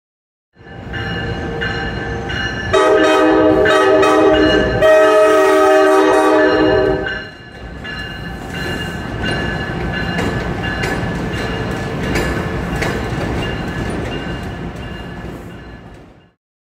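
A train's air horn sounds a loud multi-note chord for about four and a half seconds over the rumble of a moving train. After the horn stops, the train's running rumble continues, then fades out shortly before the end.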